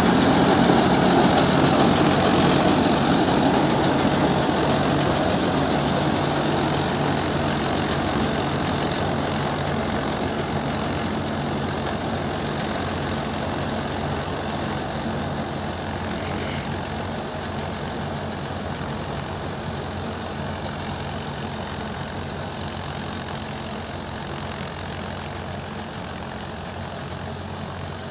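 Swaraj 963 FE tractor-mounted combine harvester working a crop, its engine and threshing machinery running steadily and growing gradually fainter as it moves away.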